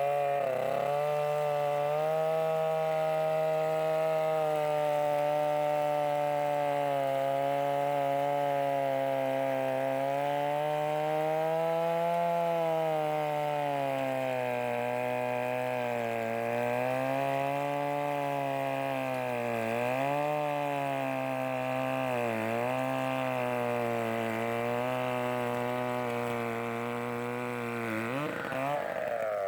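Large two-man chainsaw's engine running steadily, its pitch drifting slowly up and down, with two brief dips in speed past the middle.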